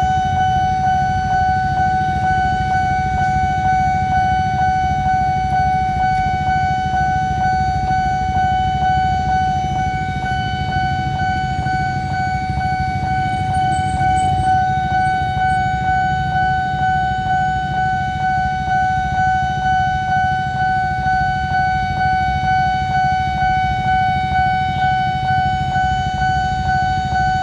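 Railway level-crossing warning alarm sounding one steady, unbroken tone, the signal that a train is approaching and the barrier is closed. Under it is a low rumble of motorbikes waiting at the crossing.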